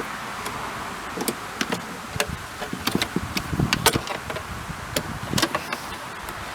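Scattered sharp clicks and knocks of hands handling plastic trim, connectors and parts inside a car door, over a steady background hiss.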